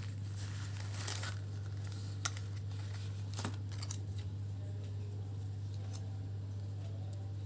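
Packaging of a new lavalier microphone being handled and opened: crinkling and tearing with a few sharp clicks, over a steady low hum.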